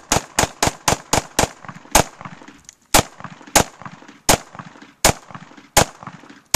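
Glock 17 9mm pistol firing a long string of about a dozen shots. The first shots come quickly, about four a second, then slow to roughly one shot every second or less, each with a short echo.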